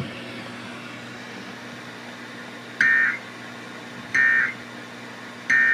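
Emergency Alert System end-of-message data signal over AM radio: three short, identical digital data bursts about a second and a half apart, after a few seconds of steady radio hiss. The three bursts mark the end of the alert.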